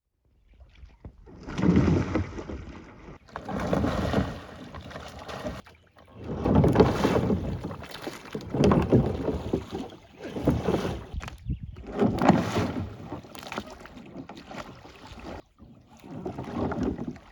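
Kayak paddle strokes in the water, a swell of swishing and splashing about every two seconds, with some wind on the microphone.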